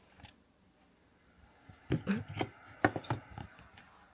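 Starfrit electric kettle starting to heat, giving a cluster of irregular ticks and clicks about two seconds in.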